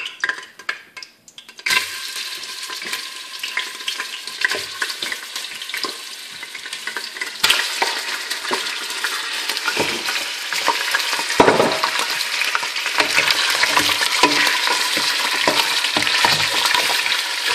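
Raw meat chunks sizzling as they are dropped one by one into hot olive oil in a stainless steel pot, with small knocks as pieces land. The sizzle starts suddenly about two seconds in and grows louder in steps as more pieces go in.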